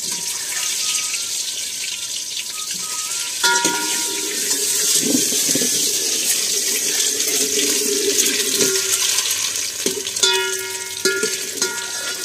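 Boiled eggs frying in hot oil in a steel pot, a steady hiss. A ladle clinks against the pot, ringing it, about three and a half seconds in and a few times near the end, with scraping as the eggs are turned in between.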